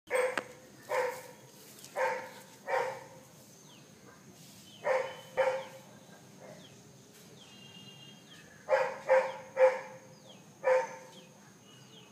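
A dog barking about ten times in uneven bursts of one to four barks.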